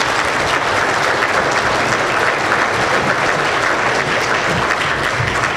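Audience applauding, a dense, even clapping that holds steady in level.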